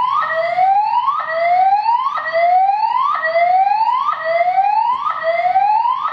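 EST fire alarm voice-evacuation speakers sounding the whoop evacuation tone: a rising sweep that repeats about once a second, signalling building occupants to evacuate.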